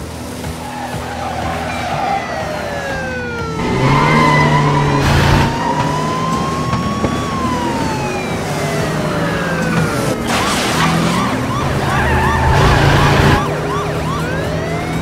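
Police car siren sound effect wailing up and down, switching to a fast yelp for a few seconds about ten seconds in, over car engine noise with a few loud surges.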